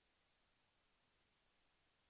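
Near silence: only a faint, steady hiss of the recording's noise floor.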